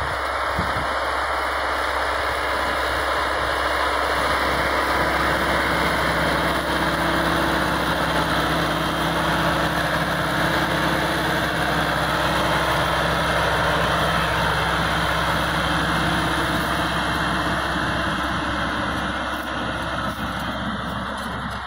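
Massey Ferguson 385 tractor's diesel engine running steadily under load while pulling a disc harrow through dry soil. It grows a little louder in the first few seconds and fades slightly near the end as the tractor pulls away.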